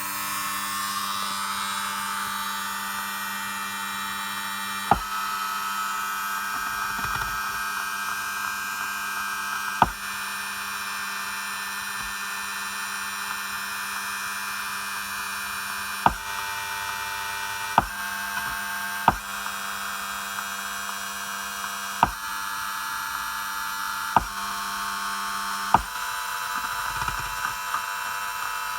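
Steady electronic buzz from an RSNAV head unit: several steady tones over a hiss, broken by sharp clicks every few seconds, eight in all. It is the fault noise the unit puts out that distorts its audio.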